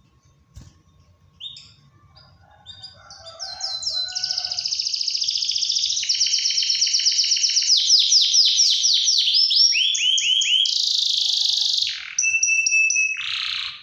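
Domestic canary singing: a few scattered chirps, then from about three seconds in a loud, unbroken run of fast rolling trills, each a rapid string of repeated down-slurred notes, switching to a new trill every second or so before stopping abruptly.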